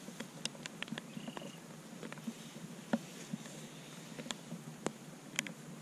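Raindrops ticking irregularly on the camera housing, a few sharp taps a second, the loudest about three seconds in.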